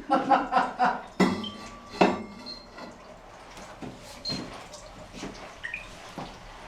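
Two sharp knocks, about a second and two seconds in, followed by scattered light clinks and taps of hard objects being handled.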